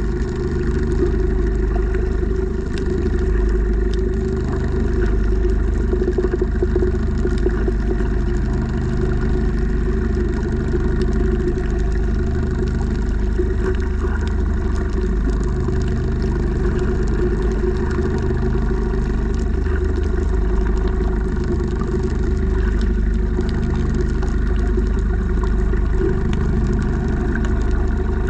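Steady, muffled drone of a boat engine heard underwater, a low rumble with a few steady tones above it.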